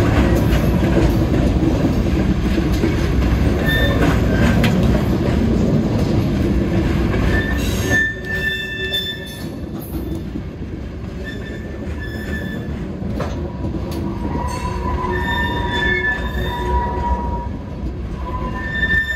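Norfolk Southern freight train rolling past with a heavy, steady rumble from its cars. About halfway through the rumble eases, and the steel wheels squeal in thin, high, steady tones that come and go until the end.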